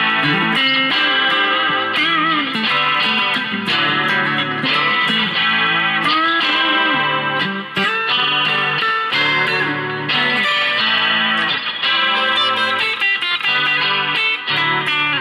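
Chinese-made Telecaster-style electric guitar played through an amp in a tone test: a continuous run of single notes and chords with string bends, starting suddenly after a brief pause.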